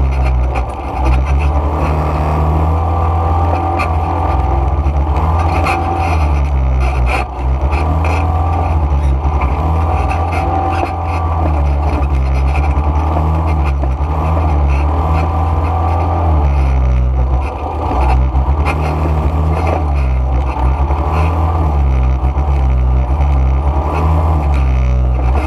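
ATV (quad bike) engine running loud and close while riding a dirt trail, its pitch stepping up and down as the throttle changes, with brief dips in loudness about a second in, around seven seconds in and around seventeen seconds in.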